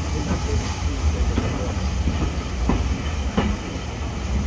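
A heritage steam railway train running: a steady low rumble with wheels clacking over the rails, and a couple of sharper clacks near the middle.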